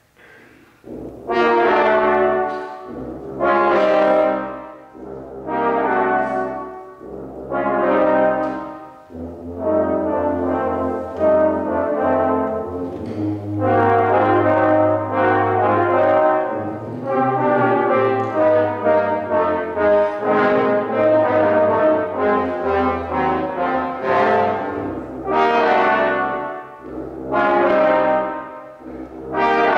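A brass ensemble of trumpets, trombones and tubas playing a jazz-style piece live. It comes in about a second in with a string of short chordal phrases separated by brief pauses. About nine seconds in it moves into a continuous passage with held low tuba notes underneath, then returns to short separated phrases near the end.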